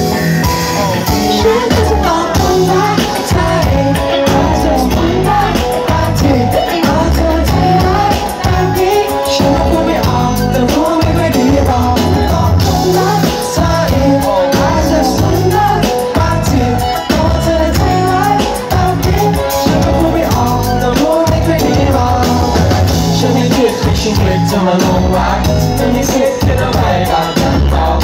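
Live pop-rock band playing through a PA system: electric guitars, bass, keyboard and drum kit, loud and continuous.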